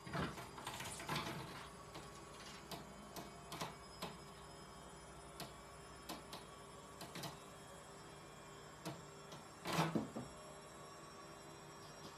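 A cat's claws scrabbling and clicking on a wooden mantelpiece: a burst of scuffling as it leaps up and grabs the shelf, scattered scratches and ticks while it hangs there, then a louder scuffle and thump near the end as it drops down to the hearth.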